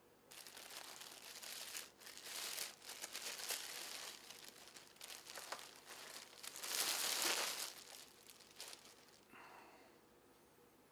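Clear plastic bag crinkling and rustling as it is handled and pulled off a figure. The sound starts just after the beginning, is loudest about seven seconds in, and dies away near the end.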